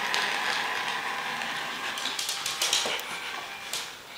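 Small geared motor of a toy mouse whirring with rattling clicks; it stops about three seconds in.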